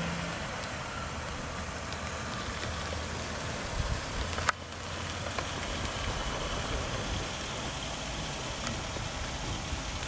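Steady noise of a minivan idling at the curb, heard from outside, with a single sharp click about four and a half seconds in.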